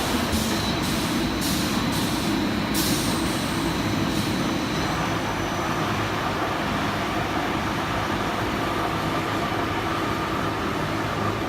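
Veneer peeling line machinery running with a steady mechanical drone, with several sharp, hissing strokes in the first four seconds.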